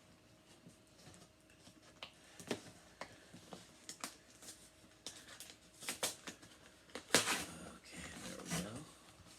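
Handling noise from a taped-up cardboard shipping box being worked open: scattered clicks and knocks, then a louder, longer rasping sound about seven seconds in.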